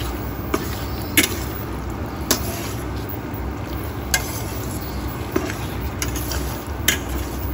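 Metal spatula stirring chicken pieces in a stainless steel pan, clinking sharply against the metal about half a dozen times, over the steady noise of the chicken simmering in its soy sauce and a low rumble.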